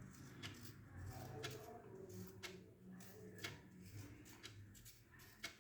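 A knife peeling a white turnip: faint, irregular clicks and scrapes, a few seconds apart.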